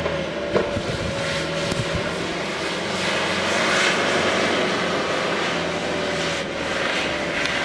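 Blizzard wind blowing in a steady rush of noise, swelling in a gust about four seconds in, with low buffeting early on.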